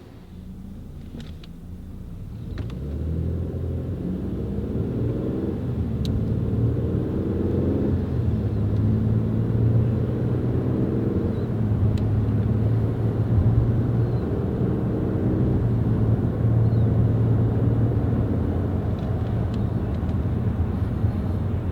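A 2019 Kia K9 under way, its engine growing louder as it pulls away. The engine pitch rises and drops back several times as the 8-speed automatic transmission shifts up, then settles into a steady drone.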